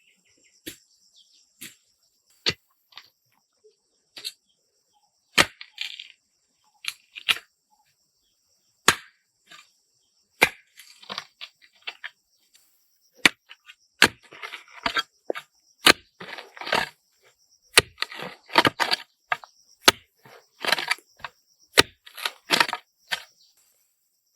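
Irregular sharp cracks and knocks, with short crackling, tearing sounds among them, coming thicker in the second half; a steady high buzz runs behind them.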